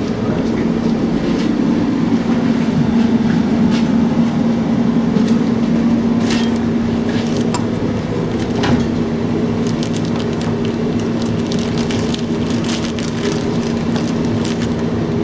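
A steady machine hum runs throughout. Over it come scattered crinkles and small clicks from a plastic zip bag being handled, thickest in the last few seconds.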